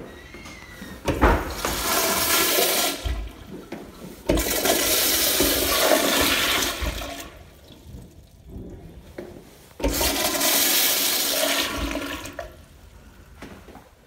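Commercial flushometer toilet flushing: loud rushes of water in three surges, about a second, four seconds and ten seconds in, each starting suddenly and lasting two to three seconds.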